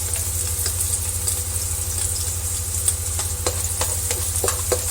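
Chopped garlic and onion sizzling in hot cooking oil in a pan while being stirred, with scattered short clicks of the utensil against the pan. A steady low hum runs underneath.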